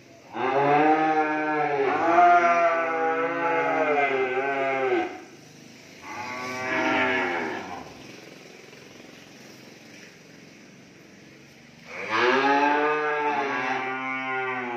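Cattle mooing: one long drawn-out moo of about four to five seconds, a shorter, quieter moo a little later, and another long moo starting near the end.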